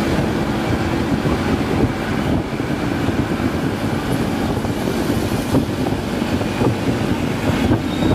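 Wind buffeting the microphone over the steady hum of a Honda ADV scooter riding along the road.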